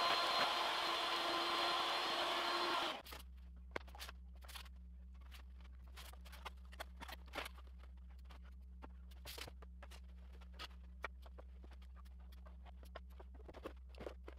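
Steady whir of a dust collector running at a CNC router, which stops abruptly about three seconds in. Light scattered clicks and taps of thin plywood parts being handled and glued follow, over a low steady hum.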